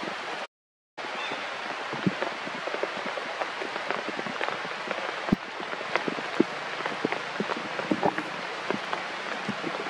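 Rain falling: a steady hiss with many single drops tapping close by. The sound cuts out completely for about half a second near the start.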